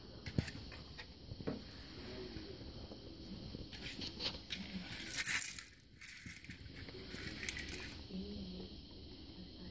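Hard plastic Buster Cube food-dispensing toy being nosed and tumbled on carpet by a puppy, with dry kibble rattling inside it and scattered knocks. The rattling is busiest about halfway through.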